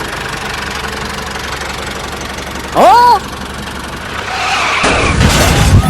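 An engine running steadily, with a short pitched cry that rises and falls about halfway through and a rising whoosh that swells near the end.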